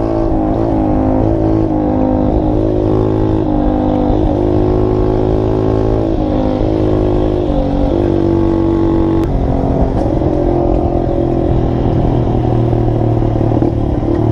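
Small 50cc motorcycle engine running under way, heard from the rider's seat, its pitch stepping up and down several times with throttle and gear changes.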